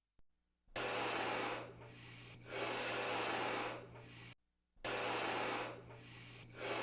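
Air rushing into a balloon in surges, four loud pushes of about a second each with quieter hiss between them, cut off briefly a little past halfway.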